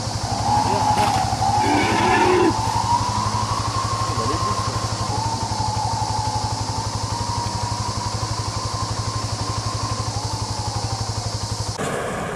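A vehicle engine idling steadily close by, with an even rapid pulse and a wavering high whine above it; the sound changes abruptly near the end.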